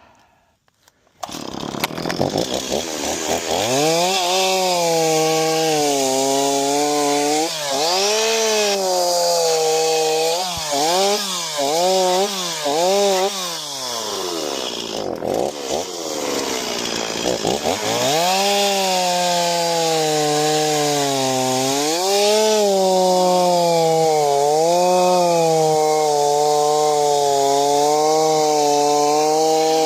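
Two-stroke chainsaw that comes in suddenly about a second in and runs at high revs, its engine pitch dipping and recovering again and again as it bogs under load in the cut, with the deepest drops in the middle before it settles into steadier high revving.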